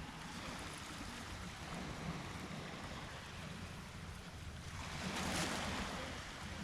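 Sea waves washing on the shore, with one wave surging up louder about five seconds in. Wind rumbles on the microphone.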